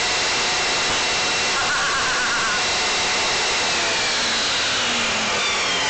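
Table saw running at full speed with a steady whine, then winding down from about four seconds in, its pitch falling as the blade coasts to a stop.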